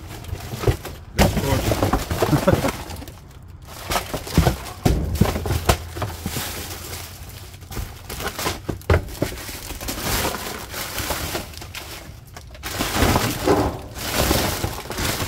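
Rummaging through trash in a dumpster: boxes and packaging being shifted and dropped, giving irregular knocks, clatters and rustling.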